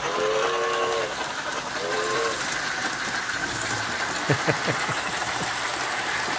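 Model steam locomotive's whistle sounding from its tender, a chord of several tones: one long blast, then a short one, over the steady rolling of the train on the track. A quick run of sharp clicks comes about four seconds in.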